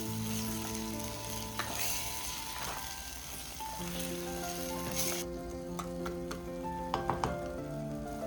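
Beef curry sizzling and frying in a pan as it is stirred, the sizzle cutting off suddenly about five seconds in. A few sharp clicks follow near the end, over soft background music.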